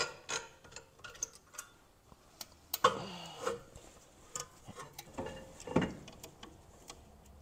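Ratchet clicking on the rear brake caliper bolts of a BMW E46, then scattered metal clinks and a few louder knocks as the caliper is worked off the brake disc.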